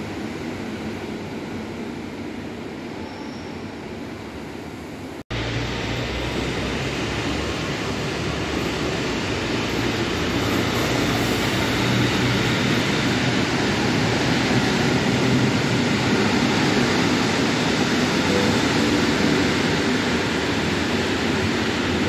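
Steady rumble and hum of a passenger train running in a railway station. The sound breaks off abruptly about five seconds in, comes back louder and keeps growing for several seconds.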